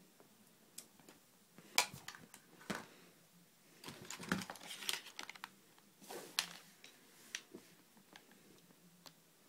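Hands handling a phone and a small plastic USB device with its cable: scattered light clicks and rustles, busiest a little before the middle and again shortly after.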